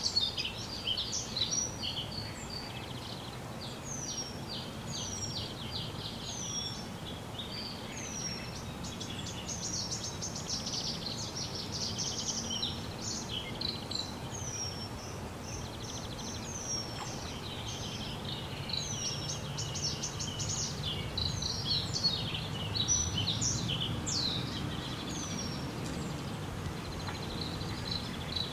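Birds chirping and calling: a busy mix of quick chirps and short down-slurred whistled notes, repeated again and again, over a faint low background rumble.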